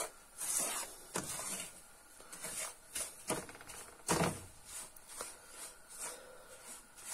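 Wooden spatula stirring and scraping semolina as it roasts in a non-stick frying pan, in irregular short strokes.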